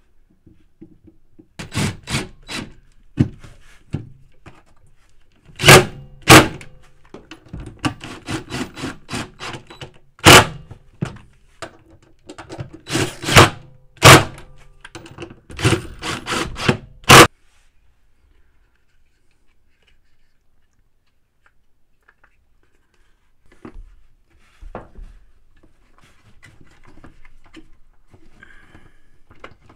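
Cordless impact drivers running down the stator mounting bolts on an LG washing machine, in a string of short bursts of rapid hammering. They stop about seventeen seconds in, leaving only faint handling sounds.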